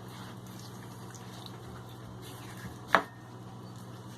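Knife cutting into a fish behind the gill while filleting: faint wet slicing sounds, with one sharp knock about three seconds in. A steady low hum runs underneath.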